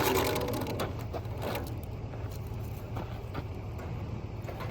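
Light rubbing and clicking as a rubber grip sleeve is pulled along a wheelbarrow handle, over a steady low rumble.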